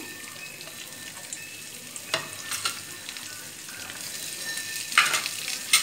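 Hot tempering oil with cumin and dried red chillies sizzling as chopped small onions are tipped into the pan, with a few light clicks and two louder, sharp spurts of sizzle near the end.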